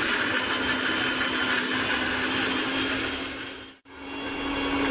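Electric mixer grinder with a stainless-steel jar running at full speed, wet-grinding green chutney with a steady motor whine. Just under four seconds in it stops abruptly, then spins back up and runs on.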